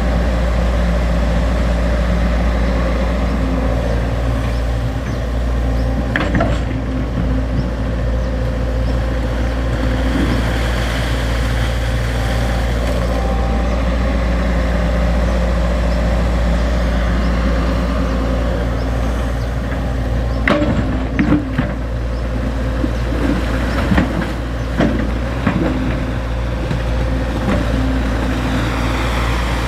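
XCMG XE75G excavator's diesel engine running steadily under working load, with a sharp knock about six seconds in and a run of knocks and clatters in the last third.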